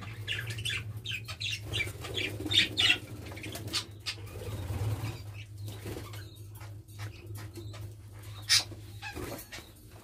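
A flock of budgerigars chattering in an aviary: many quick, scratchy chirps with wing flutters, one sharper call near the end, over a steady low hum.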